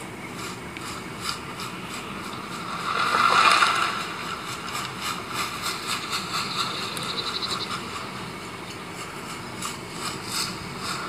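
Acer One 14 Z2-485 laptop's built-in speakers playing a video's soundtrack in a speaker test. The sound is a steady hiss with little bass and a few faint clicks, swelling briefly about three seconds in.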